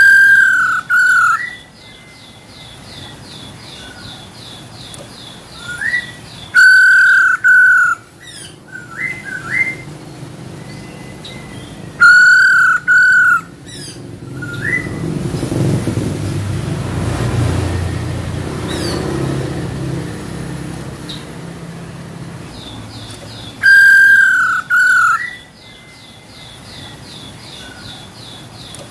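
Female poksay hongkong (black-throated laughingthrush) calling: loud, clear whistled phrases of a few notes, repeated every several seconds, with a fast, even run of high ticks after some of them. A low rumble swells in the middle and fades again.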